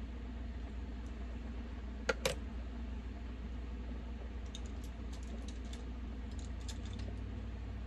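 Small hard clicks and taps of makeup palette and brushes being handled on a table: two sharp clicks about two seconds in, then a run of light quick ticks, over a steady low hum.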